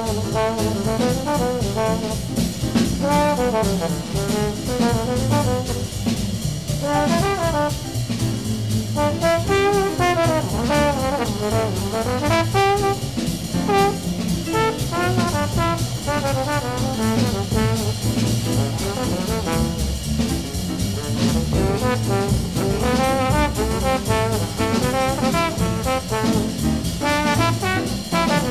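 1956 small-group jazz recording: a valve trombone plays a flowing, fast-moving improvised line over bass, piano and drums.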